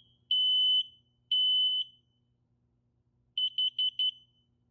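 Combination smoke and carbon-monoxide alarm sounding in test mode. Two long, loud, high-pitched beeps end its three-beep fire pattern, then after a pause come four short, quick beeps, its carbon-monoxide pattern.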